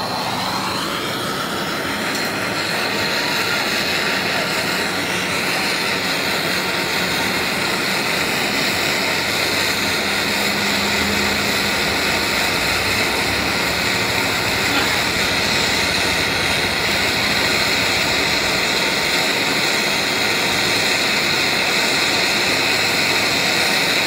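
Handheld canister gas torch burning with a steady hiss, brazing an access valve onto a refrigerator compressor's tubing. The flame noise comes up in the first second or so and then holds steady.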